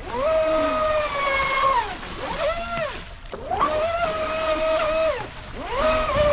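Traxxas Spartan SR's 6S brushless motor whining in four throttle bursts, each rising sharply in pitch, holding high, then falling away as the throttle is let off.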